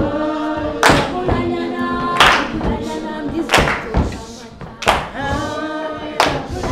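A group of voices sings together unaccompanied, with hand claps marking a steady beat about once every second and a half.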